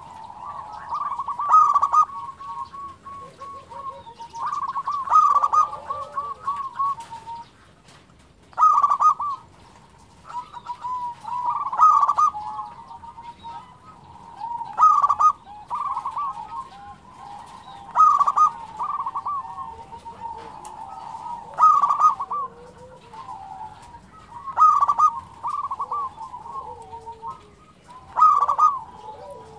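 Zebra dove (local perkutut) cooing, repeating its stuttering rolled song phrase about every three seconds.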